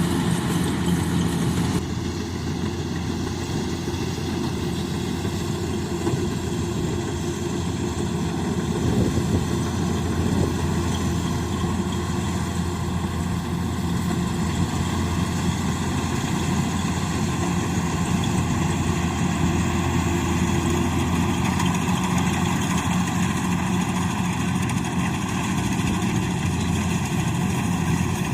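Rice combine harvester's engine running steadily, with an abrupt change in the sound about two seconds in.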